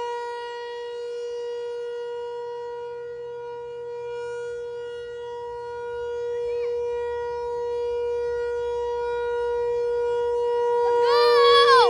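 Outdoor warning siren sounding a steady tone for its noon test, its loudness slowly dipping and swelling again. Near the end a short pitched sound that rises and falls cuts in over it.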